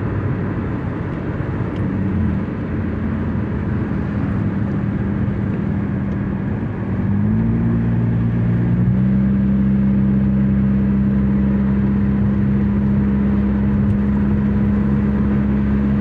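Car driving on a highway: steady engine hum and road noise. The engine note steps up about seven seconds in and then holds steady.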